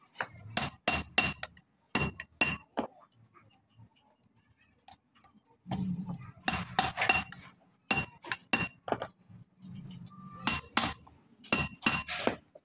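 Metal tool striking a truck clutch disc: sharp metallic clinks with a short ringing tone, in several irregular clusters of quick taps.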